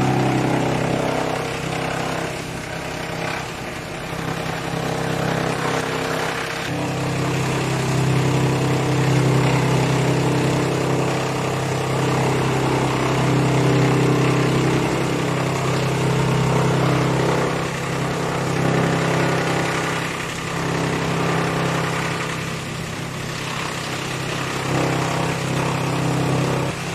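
A motor-driven machine running steadily with a low, even hum and mechanical noise that swells and eases a little in loudness.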